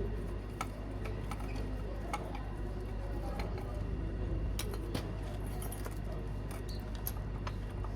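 Scattered light metallic clinks and clicks of hand tools and engine parts being handled during a diesel engine teardown, over a steady low hum.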